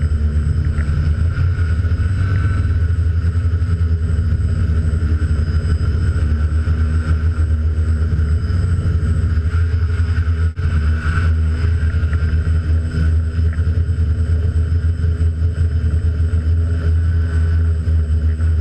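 DJI F450 quadcopter's electric motors and propellers running steadily in flight, heard from the onboard camera, with a heavy low rumble of wind buffeting the microphone. The sound cuts out for an instant about ten seconds in.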